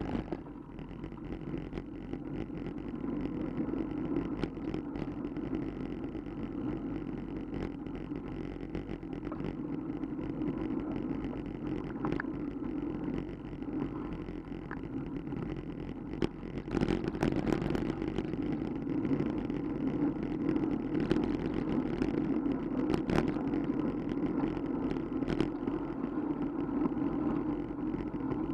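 Steady wind and road rumble from a bicycle-mounted camera riding in traffic, with the cars around it running, getting somewhat louder a little past halfway. A few sharp clicks and knocks from bumps in the pavement.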